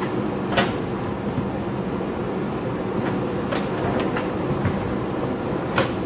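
JCB backhoe loader's diesel engine running steadily under load, with sharp clanks as the rear bucket strikes and scrapes against a large boulder, loudest about half a second in and again just before the end.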